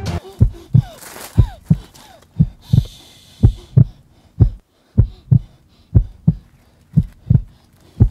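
Heartbeat sound effect: deep paired thumps, a lub-dub about once a second. A hissed 'shh' comes about three seconds in.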